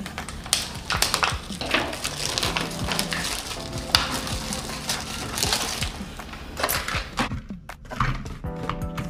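Plastic shrink wrap crinkling and rustling as snack cups are pulled out of a wrapped multipack tray, in an irregular run of handling noises with a short lull near the end.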